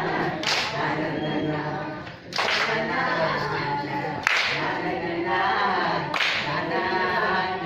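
A group of women singing together without instruments while clapping along, with a sharp unison clap about every two seconds.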